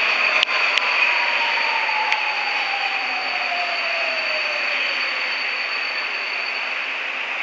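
Metro train pulling into an underground station and slowing: a whine falls steadily in pitch over a rush of wheel and air noise, with a high steady tone that fades near the end. Two sharp clicks sound about half a second in.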